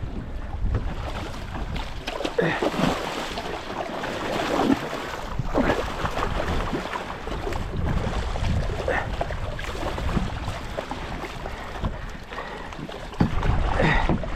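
Water splashing and lapping around a kayak, with wind on the microphone. It grows louder near the end.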